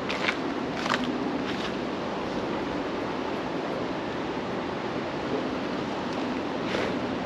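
Steady rush of flowing river water, with a few footsteps in the first two seconds and again near the end.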